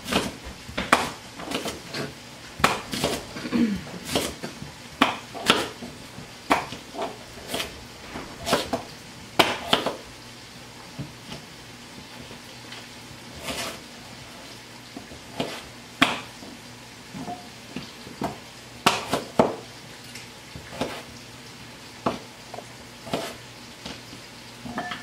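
Knives chopping carrots and a peeled root vegetable on plastic cutting boards: irregular knocks of the blades striking the boards, coming thick and fast for about the first ten seconds, then sparser.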